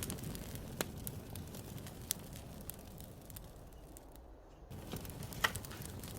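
Campfire crackling, wood popping with scattered sharp snaps over a low steady hiss; the sound briefly drops away about four seconds in.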